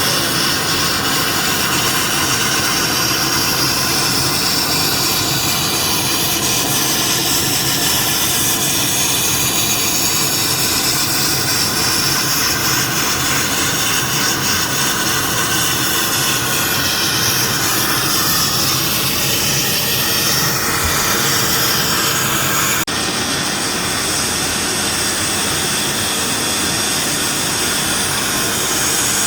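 Automatic CNC sandblasting machine blasting, compressed air and abrasive grit rushing from the nozzle in a loud, steady hiss. After a brief dip about three quarters of the way through, the hiss carries on with its hissy top end duller.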